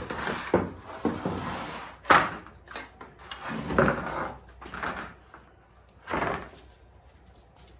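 Pine boards being handled and screwed together: a string of short, irregular wooden scraping and knocking sounds that die down after about six seconds.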